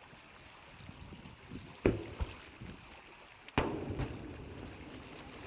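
Aerial firework shells bursting: a sharp bang about two seconds in with a smaller one right after it, then a louder bang about a second and a half later that trails off in a long rumbling echo.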